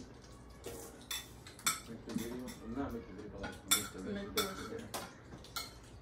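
Metal forks and spoons clinking and scraping against ceramic plates and serving dishes as people eat, in repeated irregular clinks.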